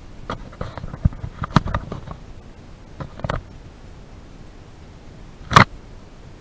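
Handling noise from a small camera carried on the move: irregular clicks, knocks and rustles, with one louder single thump about five and a half seconds in.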